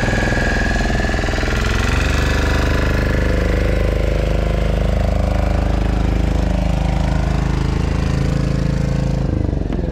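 Small fishing boat's engine running steadily at low speed close by, a continuous mechanical drone with a fast, even firing pulse.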